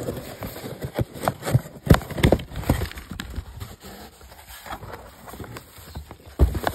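Irregular knocks, taps and rustling from packaging being handled as potted plant seedlings are unpacked from a parcel; the loudest knocks come about two seconds in and near the end.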